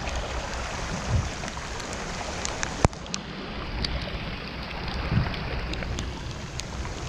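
Steady rain falling on open water and on a kayak, with wind rumbling on the microphone. Scattered sharp ticks run through it, and there is one loud tap just under three seconds in.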